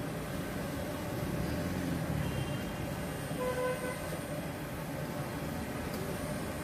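Battered eggplant slices sizzling as they deep-fry in a large wok of hot oil, under a steady low rumble of street noise. A brief tone sounds about three and a half seconds in.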